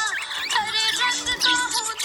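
Budgerigars chattering and warbling: a dense run of quick chirps, whistled glides and short warbles overlapping.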